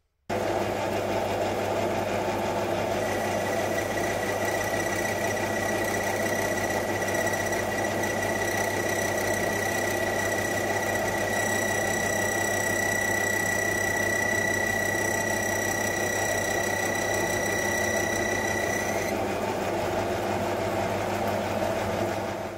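Small metal lathe running with a four-jaw chuck spinning while a small carbide boring bar bores out stainless steel round stock. A steady high whine from the cut rides over the machine's hum for most of the time and stops a few seconds before the end.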